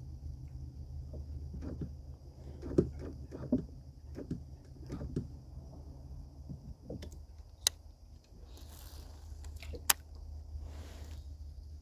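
Scattered light knocks and clicks from handling fishing tackle in a plastic kayak, with two sharp clicks in the second half and a couple of brief hisses, over a steady low wind rumble.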